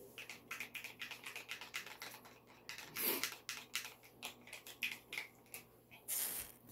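Utensils clicking and tapping rapidly against the sides of bowls while sauce is stirred, with a brief louder scrape about three seconds in and again near the end.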